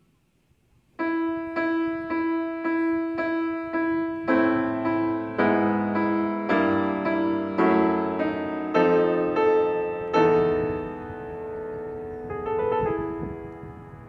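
Background music: a piano striking repeated chords about twice a second, starting about a second in, the harmony shifting every second or so and the playing softening near the end.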